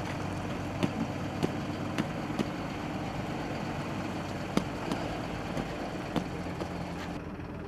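Green-and-yellow farm tractor's diesel engine running steadily at low revs, with several short sharp clicks scattered over it.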